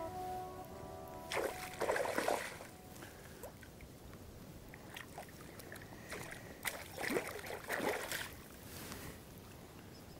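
Hooked trout splashing at the surface of shallow water as it is played in, in two bursts of splashing about a second and a half in and about seven seconds in, with a few sharp splashes between.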